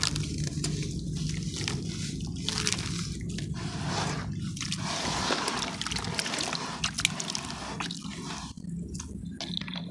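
Soft sand chunks crumbling in the hands and dropping into water, then hands swishing and pressing through the wet sand slurry. Irregular crackling, squishing and sloshing.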